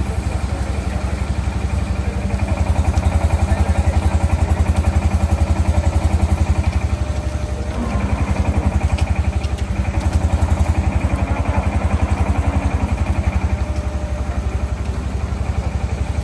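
An engine running steadily with a fast, even pulsing beat, a little louder from about two and a half seconds in.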